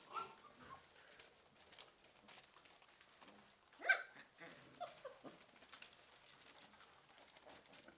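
Basset hound puppy giving one short, sharp yip about four seconds in, with two fainter yips just after, over faint scattered clicks and rustles of small paws on newspaper.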